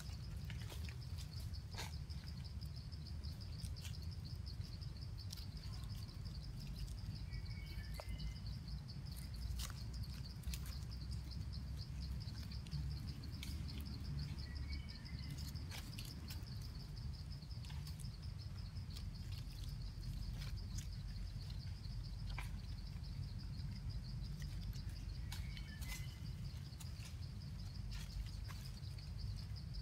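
Insects trilling steadily, a continuous high-pitched pulsing buzz, with a few short bird chirps now and then over a low rumble.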